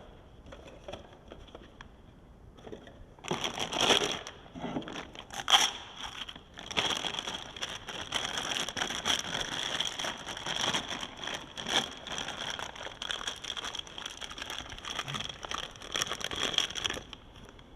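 Packaging crinkling and crackling as a suction cup mount is taken out of its wrapping, starting about three seconds in, with two sharper, louder crackles soon after.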